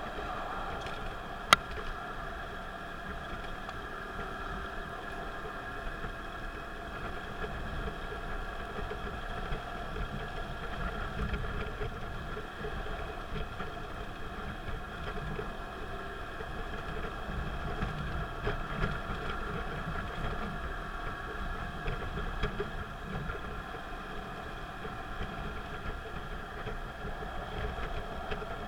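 Car driving at expressway speed, heard from inside the cabin: a steady rumble of engine and tyre noise with a faint constant hum. A single sharp click about a second and a half in.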